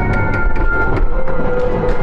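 Music with several held notes that shift in pitch, over a fast, even clicking beat and a low rumble.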